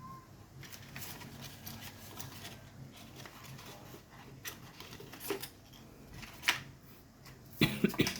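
Hands handling the phone's box and packaging: rustling with scattered light clicks, then a sharp click and, near the end, a quick cluster of louder knocks.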